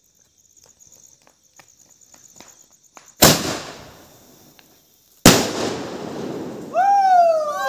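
Two firecrackers go off about two seconds apart, each a sharp loud bang followed by a crackling tail as the sparks burst, after faint small pops. Near the end a long high cry rises and falls, with a second one overlapping it.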